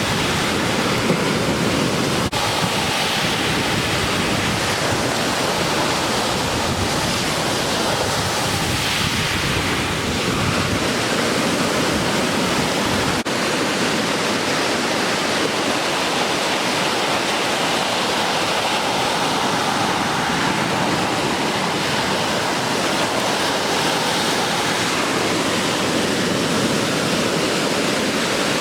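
Ocean surf from the swell left behind by a passing typhoon, making a continuous steady rush of breaking waves, with some wind on the microphone.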